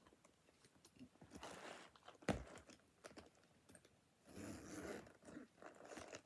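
A Coccinelle leather shoulder bag being handled: faint rustling and rubbing of the leather, with one sharp click about two seconds in. A little past halfway comes a longer rasp as the top zip is pulled open.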